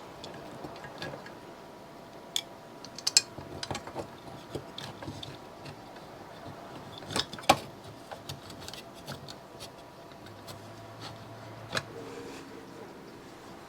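Irregular clicks, taps and clinks of small metal fan parts and hand tools being handled and fitted, with the sharpest clink about seven and a half seconds in. A faint steady hum starts about ten seconds in.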